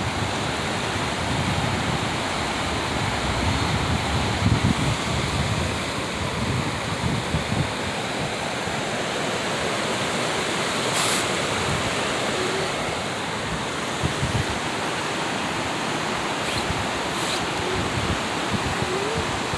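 Steady rush of flowing water. Wind buffets the microphone with a low rumble through roughly the first eight seconds, and there are a couple of brief clicks near the middle and later on.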